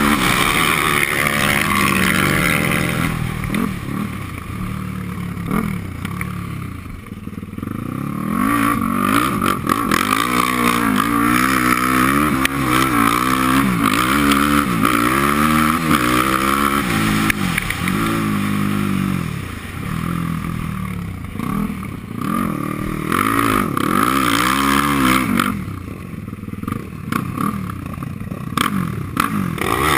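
Yamaha sport quad's engine under hard riding, revving up and dropping back again and again as the throttle is worked and gears change. It eases off briefly a few times: about five seconds in, near twenty seconds and again near twenty-six seconds.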